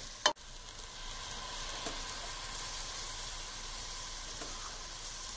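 Chopped tomatoes, onion and spices sizzling steadily as they fry in a stainless-steel saucepan, with one sharp click just after the start.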